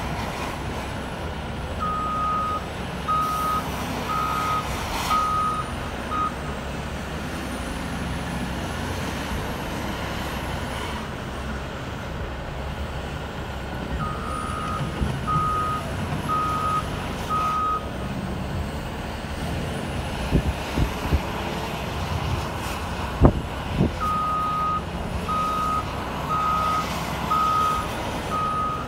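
CAT 966M wheel loader's diesel engine running under work, with a reversing alarm beeping in three runs of about four to six evenly spaced beeps as the machine backs up. A few sharp knocks come about two-thirds of the way through.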